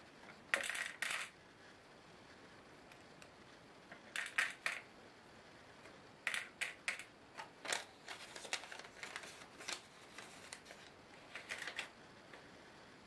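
Small black laptop screws clinking as they are shaken in a palm and dropped into small plastic cups: bursts of light metallic clicks, a few at a time, with a longer run in the middle.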